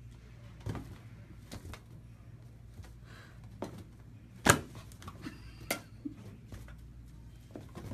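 A rubber party balloon bumping against a dog's muzzle as the dog bats and snaps at it: irregular soft knocks, the loudest about four and a half seconds in, over a steady low room hum.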